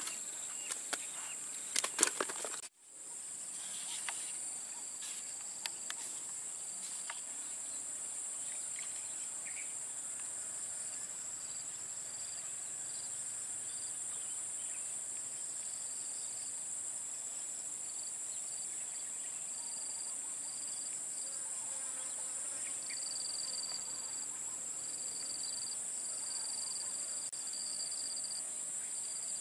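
Insect chorus: a steady high-pitched buzz, with a second insect calling in short, repeated pulses that come more often near the end. A few clicks and knocks in the first two seconds.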